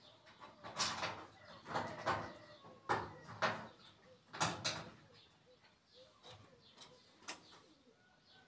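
Irregular short knocks, clicks and scrapes of metal as the oven burner nozzle fitting on a gas cooker is worked by hand, the loudest about a second in and at about two, three and four and a half seconds.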